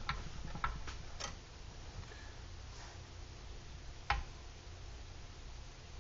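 A few sharp metallic clicks and taps from clamping the tire wires and working an old hand-cranked tire-mounting machine, irregularly spaced, with the loudest click about four seconds in, over a low steady hum.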